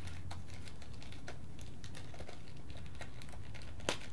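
Small plastic seal packets being opened and handled: a run of light crinkles and ticks, with one sharper click near the end.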